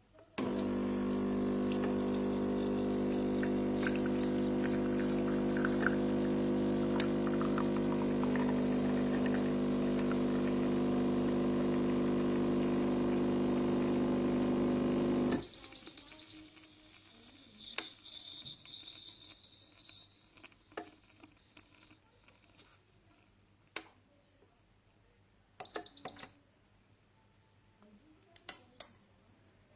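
Espresso machine's pump buzzing steadily for about fifteen seconds while it brews, then stopping suddenly. Afterwards a few short high beeps and light clicks.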